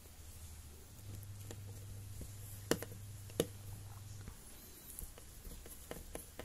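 Precision screwdriver fitting a small screw into a laptop screen's hinge bracket: light metal clicks and taps, two sharper clicks near the middle and fainter ticks later, over a low steady hum.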